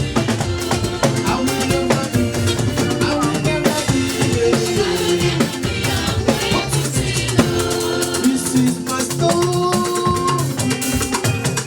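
Church choir hymn with drum kit and percussion keeping a steady, busy beat under sustained pitched parts.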